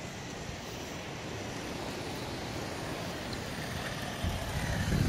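Wind buffeting the microphone, a steady rushing noise, with a short low thump near the end.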